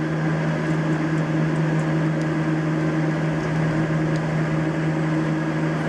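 Steady machine hum from a Haas CNC mill during a handle-jog probing operation, an even drone with a constant low tone.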